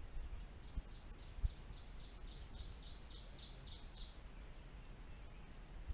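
A bird singing a run of about fifteen short, high, falling notes, about five a second, growing louder before stopping about four seconds in. Two dull low thumps near the start.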